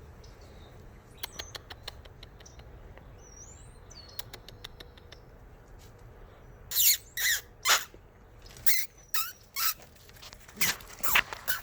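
Newborn puppies squealing: about nine short, high-pitched squeals in quick clusters over the second half, after a few faint clicks.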